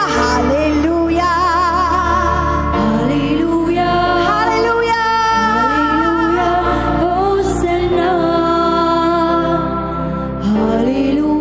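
Women's worship team singing a Tamil Christian worship song together, with wavering held notes that scoop up into each phrase, over sustained keyboard chords that change every two to three seconds.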